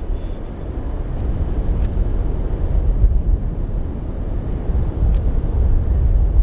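The roar of a large, quarter-mile-wide tornado: a loud, steady, deep rumble.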